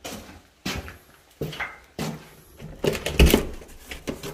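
Knocks and clatters of a front door being handled, the door and its protective cardboard cover bumping and rattling. There are several separate knocks, with the loudest, a heavy thud, a little after three seconds in.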